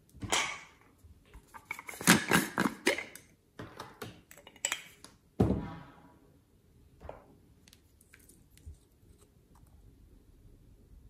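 Glass nail polish bottle being handled and opened: a run of sharp clicks and taps of cap on bottle, and a short scraping squeak about five and a half seconds in, followed by faint small ticks.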